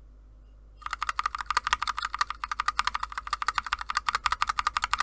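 A single KTT Kang White V3 linear mechanical keyboard switch pressed and released over and over, giving rapid, even clicking that starts about a second in.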